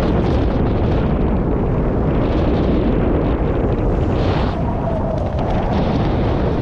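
Wind buffeting the microphone of a kite-mounted camera high over the sea: a loud, steady, deep rush of wind noise, briefly hissier about four seconds in.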